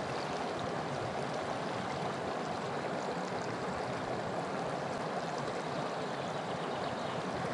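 Stream water rushing steadily, a constant even rush with no change.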